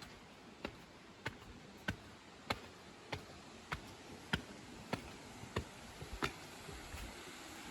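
Footsteps at a steady walking pace, a sharp step about every 0.6 seconds, over a faint steady rushing noise.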